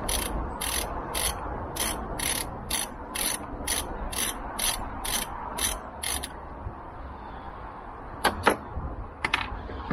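Socket ratchet with a Torx bit clicking in quick, even strokes, about two and a half a second, as it works out a screw of the under-seat storage tub. The ratcheting stops about six seconds in, and a few sharp clicks follow near the end.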